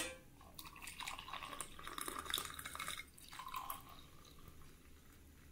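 Hot spiced ginger decoction being strained, a faint irregular trickling and dripping of liquid that dies down after about three seconds. It opens with a light clink.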